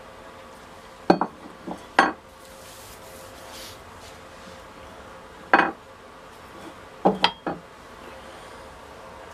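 Metal hand tools being set down on a wooden workbench, making sharp clanks. Two come about a second apart near the start, one in the middle, and three in quick succession near the end.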